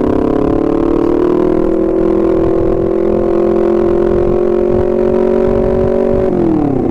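Honda CBR250RR parallel-twin engine running under steady throttle while riding. Its pitch rises a little over the first two seconds, holds steady, then falls near the end as the throttle is closed.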